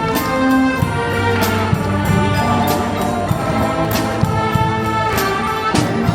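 Youth wind band playing live: brass and woodwinds hold sustained chords and melody over drum strokes.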